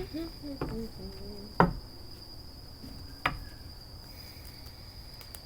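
An insect trilling steadily on one high pitch, with two sharp taps, one about one and a half seconds in and one about three seconds in.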